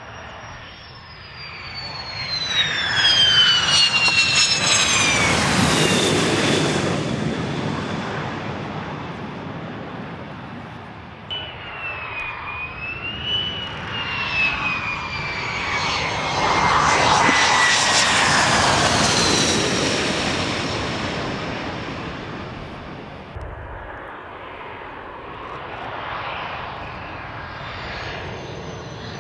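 Fighter jets landing one after another: an F-16, then an F-35, then a Panavia Tornado. Each passes with a high engine whine that falls in pitch while the jet noise swells and fades. The sound cuts abruptly twice, between one aircraft and the next.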